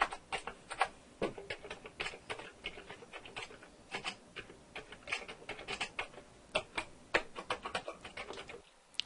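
Recorded computer-keyboard typing sound effect played back: quick, irregular key clicks, several a second, with a few louder keystrokes standing out.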